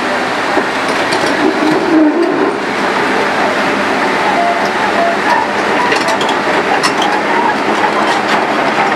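Loud, steady rush of a flooded river mixed with a working excavator's engine and hydraulics as it tows a jeep through the water on a cable from its bucket. A few sharp metallic clicks and clanks come in the second half.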